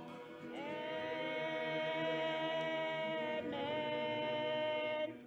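Voices singing together in long, held notes, with a rising slide into the first note and a change of note about three and a half seconds in; the singing stops just before the end.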